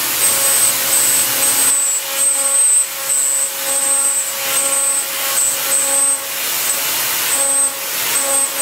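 CNC milling machine cutting metal: a high-pitched cutting whine that repeatedly cuts in and out over a steady hiss.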